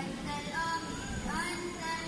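Boys' nasyid group singing softly: high children's voices gliding between notes, with little instrumental backing.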